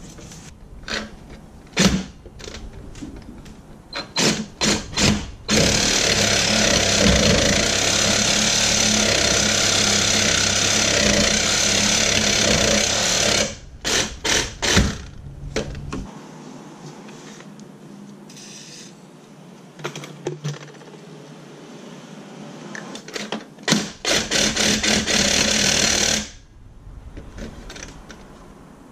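Cordless reciprocating saw with a carbide blade cutting through a rear suspension lateral link bolt that is seized in its bushing. It starts in short stop-start bursts, then cuts steadily for about eight seconds, gives a few more short bursts, goes quieter for several seconds, and cuts again for a couple of seconds near the end.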